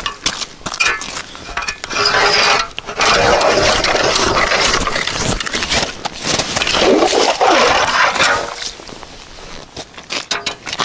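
Hand ice auger cranked down into the ice, its blades grinding and scraping through it from about two seconds in to about eight and a half seconds, with a short break about three seconds in. Footsteps crunch on wet snow before and after.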